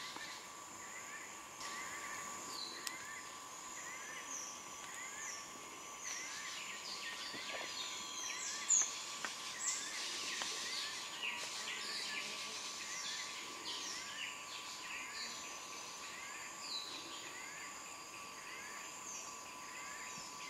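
Tropical rainforest ambience: insects droning steadily, with a soft chirp repeating about once a second. Various birds call with short falling whistles, busiest in the middle, with the loudest call about nine seconds in.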